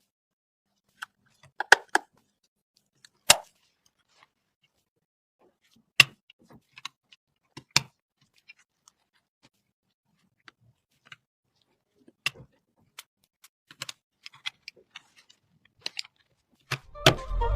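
Scattered clicks and knocks of PC components being handled and fitted together, with quiet gaps between them; the sharpest come about 3 and 6 seconds in. Music starts just before the end.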